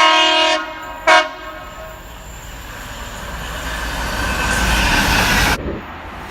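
Train horn sounding two blasts, a longer one and then a short one about a second later, followed by the train's running noise growing louder as it comes by, which cuts off suddenly near the end.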